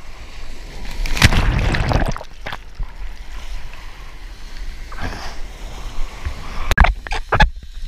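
Surf water splashing and sloshing around a surfer in breaking whitewater, with a loud rush of water about a second in and a few sharp knocks near the end.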